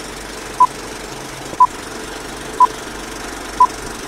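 Short electronic beeps at one pitch, one a second, four times, over a steady background hum.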